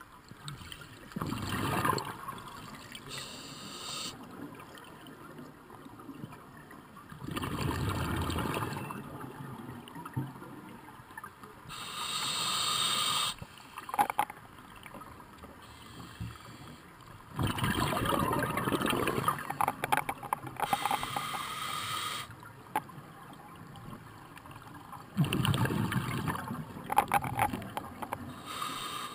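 Scuba diver breathing on a regulator, heard through a GoPro underwater housing: a slow, regular cycle of a short hissing inhale followed by a longer burst of bubbling exhaled air, about four breaths, with a few sharp clicks.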